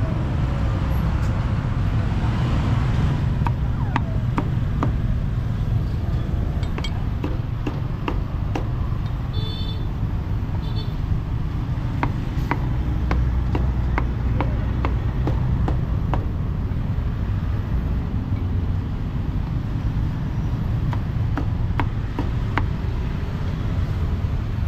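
Meat cleaver chopping roast pork on a thick wooden chopping block: irregular sharp knocks, over a steady low rumble of passing street traffic.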